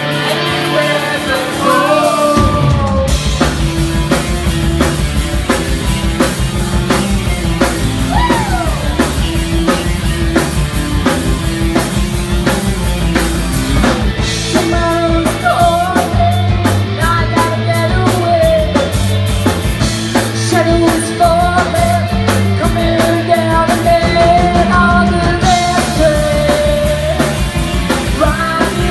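Rock band playing live: female lead vocals over electric guitar, bass guitar and drums, heard from within the crowd. The bass and drums come in about two seconds in, and the singing is strongest through the second half.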